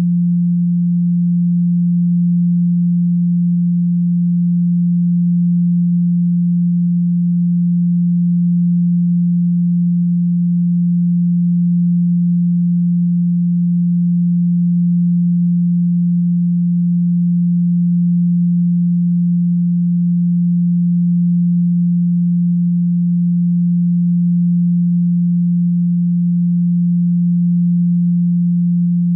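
A steady pure sine tone at 174 Hz, held unchanging at one pitch and level: a Solfeggio-frequency tone.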